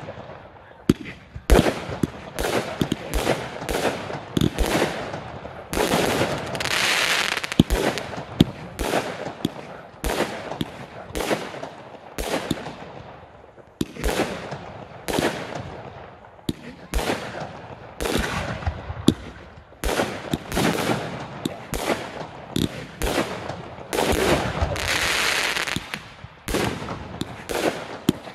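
Fireworks display: aerial shells bursting in quick succession, sharp bangs often several a second. Twice, about a quarter of the way in and near the end, a dense hiss lasting about two seconds rides over the bangs.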